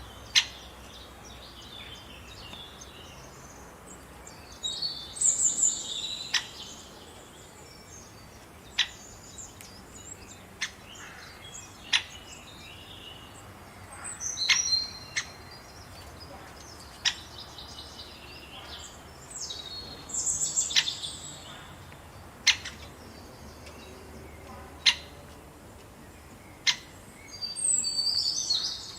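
Wild birds singing: bursts of high chirping phrases every several seconds, between them single sharp chip notes every second or two, over a faint steady outdoor background.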